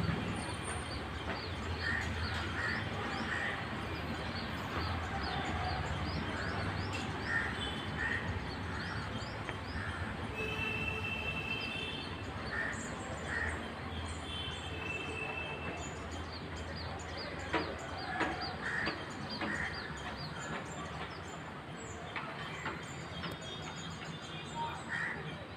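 Outdoor background noise: a steady low rumble with scattered short, high chirps coming in little groups of two or three.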